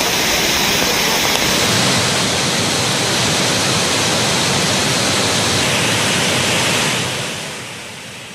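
Waterfall in spate, swollen with surplus water released from upstream dams: a steady, loud rush of falling water that fades out near the end.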